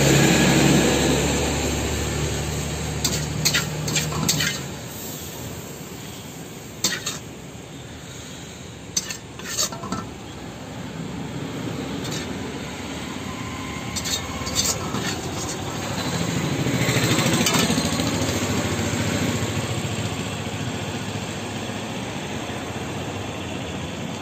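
Metal spatula clinking and scraping against a steel wok and pans in short clusters, over a steady low background rumble.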